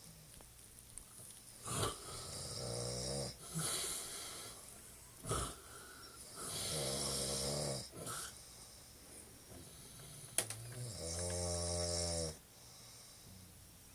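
A man snoring in his sleep: rough snores of uneven length every couple of seconds. Near the end comes a longer snore with a clear pitch, with a sharp click just before it.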